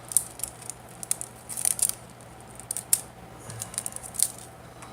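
Plastic wrapping being cut and pulled off a fishing rod grip: scattered short crinkles and snips in several clusters.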